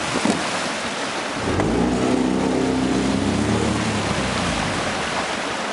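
A small boat's outboard motor running steadily under way, its note wavering slightly, under a constant hiss of water and air rushing past.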